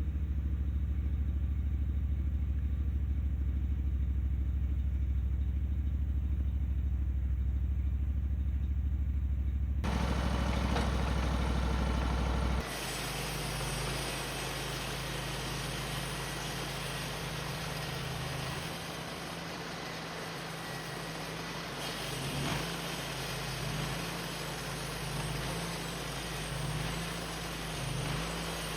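Engine running steadily. About thirteen seconds in, the sound changes abruptly to a quieter engine drone with more hiss.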